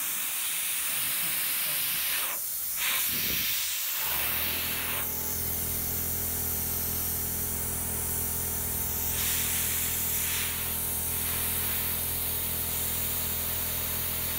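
Compressed air hissing from a straw nozzle aimed at a milling cutter, the flow swelling and dropping a few times. About four seconds in, a motor starts up and hums steadily underneath the hiss.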